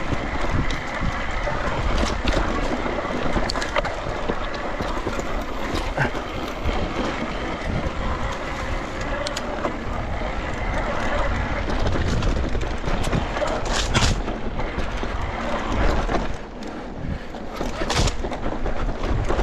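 Electric mountain bike being ridden over rough ground: steady rolling tyre noise and rattling of the bike, with two sharper knocks about 14 and 18 seconds in.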